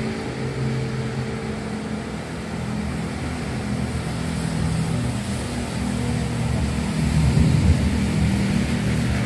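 Road traffic on a rain-wet street below: vehicle engines and tyre noise, a steady hum that grows louder from about seven seconds in.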